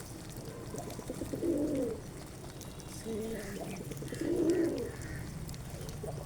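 Pigeons cooing: three low, rolling coos a second or so apart, with faint higher chirps from small birds in the middle.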